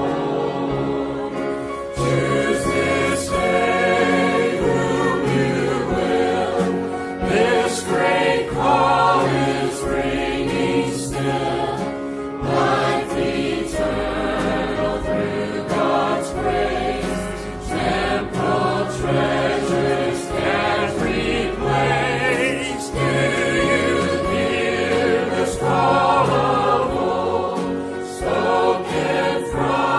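Church choir singing a gospel hymn in several parts with instrumental accompaniment.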